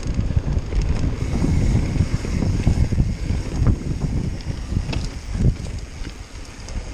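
Mountain bike riding fast down a dirt trail: wind buffeting the microphone over the rumble of the tyres, with a few sharp ticks and rattles from the bike over bumps.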